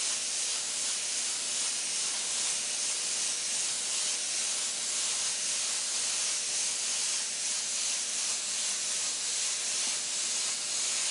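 Iwata airbrush spraying paint in a steady hiss of compressed air.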